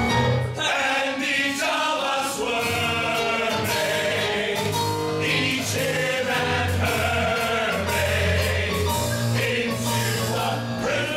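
A chorus of men singing a vaudeville-style song together over instrumental accompaniment with low, held bass notes.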